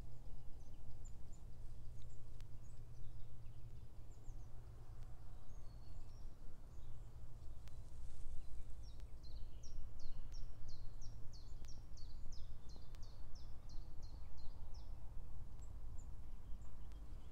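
Woodland birdsong: scattered short high calls, then a long run of quick, repeated high notes, each sliding downward, from about nine seconds in for some six seconds. A steady low rumble runs underneath.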